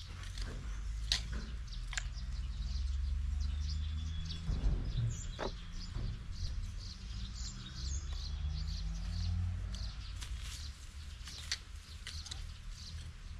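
Small hand hoes digging potatoes out of garden soil: scraping, with a few sharp clicks where a blade strikes. Birds chirp throughout, over a steady low drone.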